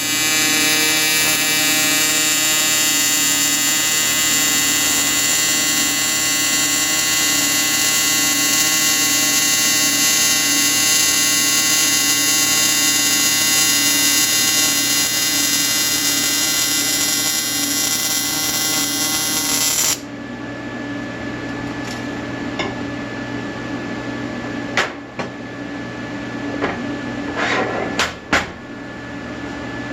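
Welding arc buzzing steadily while a part of a turbo intake is welded. It cuts off abruptly about two-thirds of the way through, followed by a few light metal clicks and knocks.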